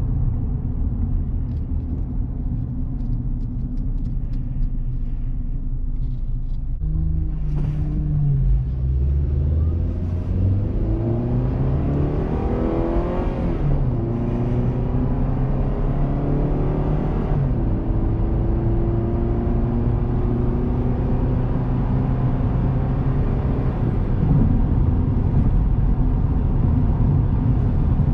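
2000 Honda Accord LX's 2.3-litre four-cylinder engine, heard from inside the cabin as the car accelerates. About seven seconds in the engine note starts rising, drops back twice as the automatic gearbox upshifts, then settles into a steady cruise over low road rumble.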